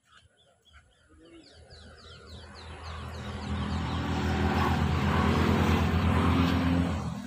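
A motor vehicle driving past: its engine grows steadily louder over several seconds, with a low pulsing beat, and begins to fade near the end. A bird chirps a quick run of short notes before the engine gets loud.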